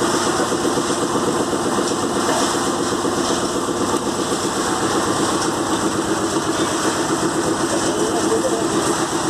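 Engine of a piling machine running steadily, with an even, rapid pulse.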